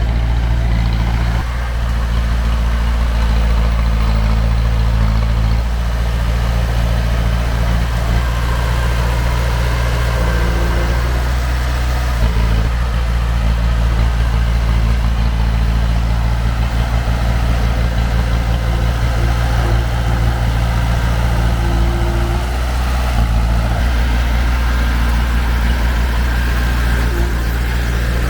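Heavy diesel engine of an earthmoving machine running steadily at a constant low speed, with slight changes in its note a few times.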